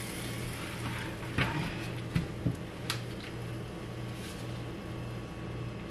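Diced potatoes tossed into a pot of boiling water: a few scattered soft plops and knocks over a steady low hum.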